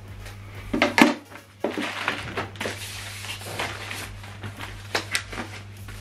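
Packaging being handled as a soundbar is lifted out of its box: a couple of sharp knocks about a second in, then rustling and crinkling of the wrapping, with a few sharp clicks near the end.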